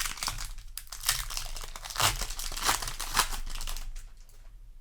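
Foil booster pack wrapper crinkling and tearing as it is handled, in dense rustles that die away near the end.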